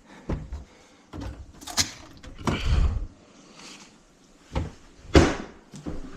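Doors being handled: a series of knocks and thumps, with the loudest bang, a door shutting, about five seconds in.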